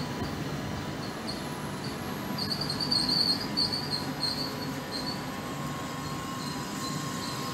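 Passenger train coaches rolling slowly past along the platform track: a low steady rumble with short, repeated high-pitched wheel squeals, loudest about three seconds in.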